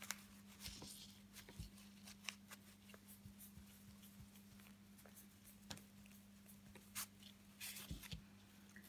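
Faint rustling and small ticks of satin ribbon and a large needle being worked through embroidery canvas in a hoop, over a low steady hum.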